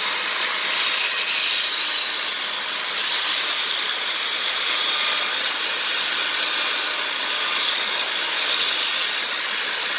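Electric drill running steadily, spinning a plywood pulley wheel while folded sandpaper is held against it: a continuous sanding hiss over the drill's motor. The wheel is being turned and smoothed as on a lathe.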